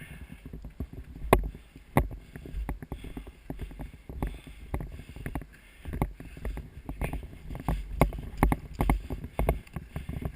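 Irregular sharp knocks and clicks scattered through, over low rumbling and rustling.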